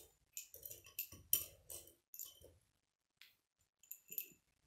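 Plastic K'nex rods and connectors clicking and clinking as they are handled, in a quick string of short rattles, then a single click and a last brief rattle near the end.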